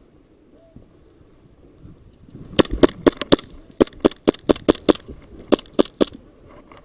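Airsoft gun firing a quick string of single shots, about seventeen sharp cracks at roughly four to five a second with short pauses between groups, starting a couple of seconds in and stopping shortly before the end.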